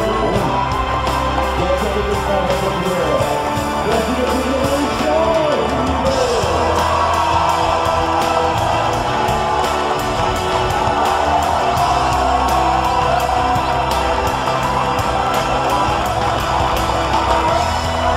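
Music with a steady beat and singing in it.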